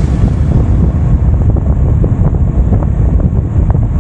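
Wind buffeting the microphone of a touring motorcycle riding at road speed, a loud, steady rumble with road and engine noise beneath it.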